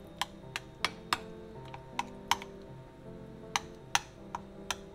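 Metal spoon clinking against a ceramic bowl in quick, irregular taps, two or three a second, as it mashes and stirs mango pulp with cream. Soft background music runs underneath.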